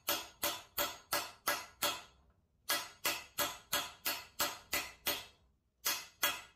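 Small hammer tapping a metal driver to drive a bronze bushing into the end of a steel tube housing, about three ringing metal-on-metal blows a second. The blows come in runs broken by short pauses about two seconds in and near the end. The bushing is going in as a tight interference press fit.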